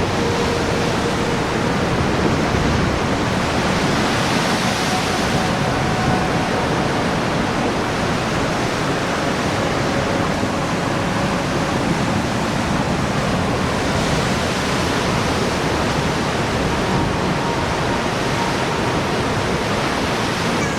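Steady rushing noise of ocean surf on a rocky coast, mixed with wind, with no breaks or single wave crashes standing out.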